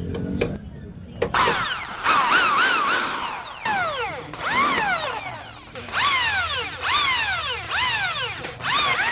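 Power drill run in short trigger pulses. The motor speeds up and slows down again about once a second, as when drilling out a snapped bolt.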